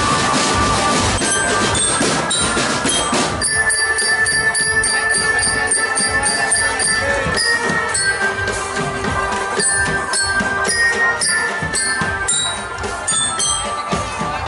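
Marching drum band playing: drum strokes with bright, bell-like melody notes. About three and a half seconds in, the dense full-band sound thins to sparser drum strokes and bell notes over a held tone.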